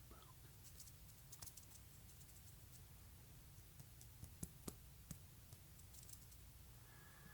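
Faint, close-miked ASMR clicks and taps: soft crackly ticks in small clusters, with a few sharper clicks in the middle.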